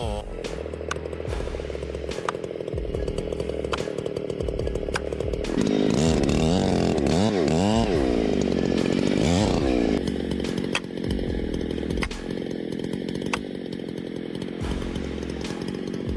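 Chainsaw engine running hard, its pitch dipping and rising several times in the middle as the throttle and load change, with a few sharp clicks.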